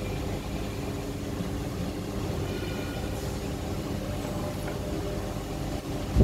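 Steady low hum of an EDM (electrical discharge machine) running while its copper electrode is raised and the table repositioned, ending in a short loud thump.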